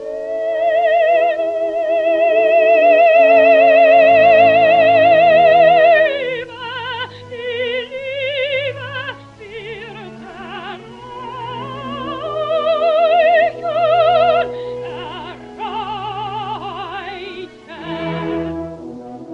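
Operatic soprano singing with orchestra on a 1927 Parlophone 78 rpm record: a long high note with wide vibrato held for about six seconds, then shorter phrases over the accompaniment.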